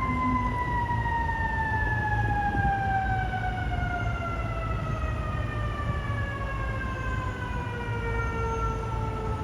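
Fire engine siren winding down: its pitch peaks right at the start, then falls in one long, slow, steady glide, over a low rumble.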